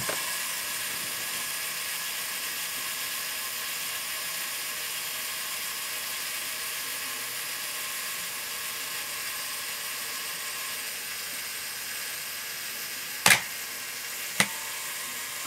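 Honeywell Pentax Spotmatic's mechanical self-timer running steadily for about thirteen seconds, then the shutter firing with a sharp click, followed by a second, smaller click about a second later. The self-timer works.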